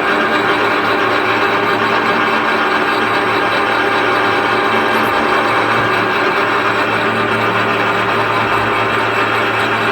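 WMW bevel gear machine running under CNC control: a steady, dense mechanical clatter of gearing and drives over a constant low motor hum.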